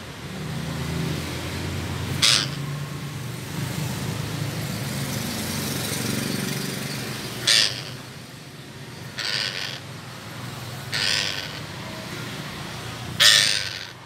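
Red-breasted parakeet giving five short, loud screeches, spaced a second or two apart.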